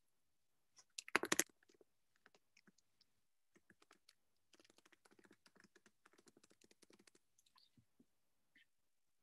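Typing on a computer keyboard: a louder cluster of key knocks about a second in, a few scattered keystrokes, then a quick run of rapid keystrokes in the middle, with a few more near the end.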